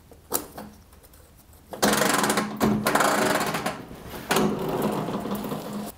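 A single click, then about two seconds in a loud, rapid, buzzing mechanical sound sets in, breaking off briefly just after four seconds and starting again.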